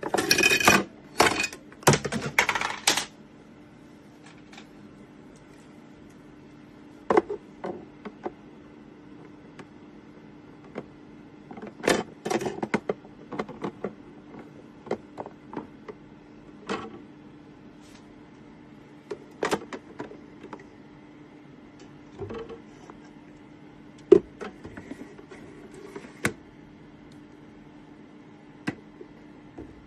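Steady low hum of the mini fridge's small cooling fan. Sharp clicks and knocks come scattered throughout, with a louder cluster of clattering in the first three seconds.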